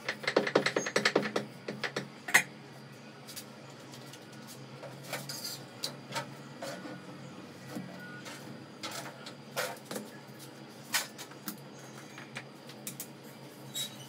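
Roti-making clatter: a rolling pin and board tapping on the counter in a quick run of taps in the first second and a half, then scattered knocks and clinks of tongs and utensils at the stove.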